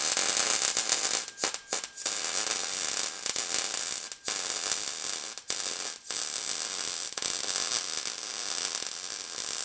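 Lincoln 140 MIG welder's arc running steadily as a bead is laid on rusty steel plate, with several short breaks where the arc stops and restarts. The welder doesn't care for the rust.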